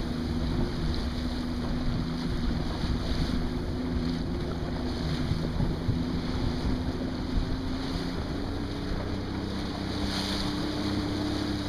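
Boat engine running with a steady low hum that rises slightly in pitch about eight seconds in, under wind buffeting the microphone and waves slapping on the water.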